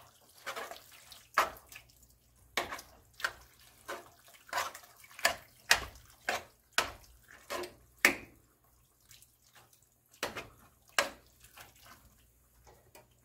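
A spoon stirring a thick, chunky mix of ground beef, tomatoes and cheese cubes in a metal pot: irregular wet squelches and knocks of the spoon against the pot, one every second or so, thinning out near the end.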